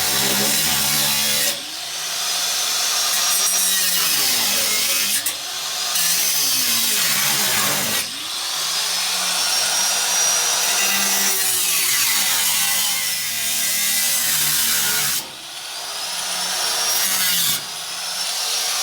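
Power tool cutting out a rusted floor pan of a 1957 Nash Metropolitan, running hard through the sheet metal. It eases off briefly five times, and each time its thin whine climbs back up as it bites again.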